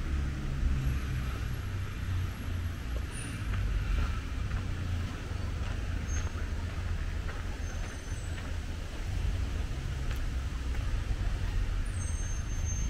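Steady outdoor traffic rumble from cars on a nearby town street, mostly low and even throughout, with a few brief, faint high-pitched chirps.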